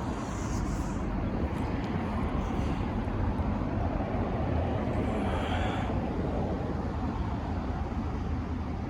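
Steady rumbling background din with no distinct events.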